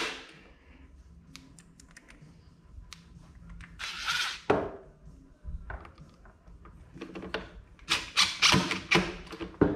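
Workbench handling sounds from hand tools and the plastic blower housing: scattered light clicks, a short scrape and a knock about halfway through, then a cluster of louder knocks and rattles near the end as the blower is taken by its handle and shifted.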